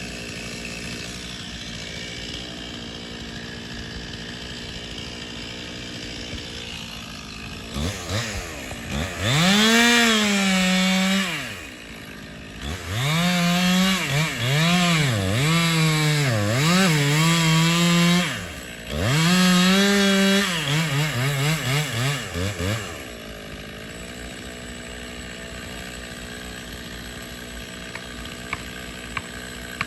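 Two-stroke chainsaw idling, then revved to full speed in several bursts about eight seconds in, the engine note dipping and climbing again between them, before dropping back to idle near the end.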